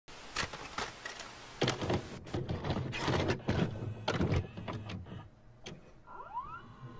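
Mechanical clunks, clicks and whirring of a VCR taking in and starting a tape, with a couple of short rising whines about six seconds in.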